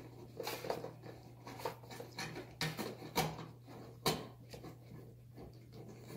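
Hand screwdriver driving screws snug: a series of small, sharp clicks and scrapes at irregular intervals as the screws are turned down, over a steady low hum.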